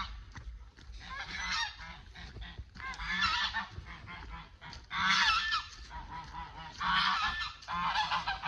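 A flock of domestic geese honking, many overlapping calls in repeated bouts about every two seconds.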